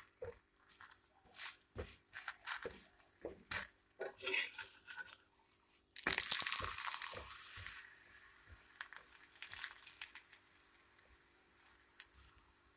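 A spatula scrapes and taps on a hot tawa griddle as a roti fries in a little oil. About six seconds in, the flatbread is flipped and sizzles loudly for about two seconds, then settles to a quieter sizzle with a few scrapes.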